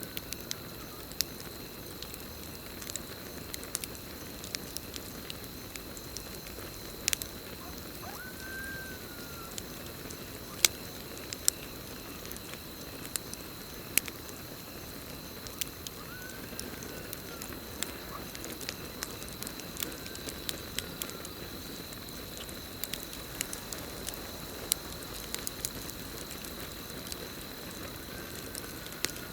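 Campfire crackling, with many sharp pops over a steady hiss of burning wood. A continuous high cricket trill runs underneath, and a few short rise-and-fall calls from some night creature sound at intervals.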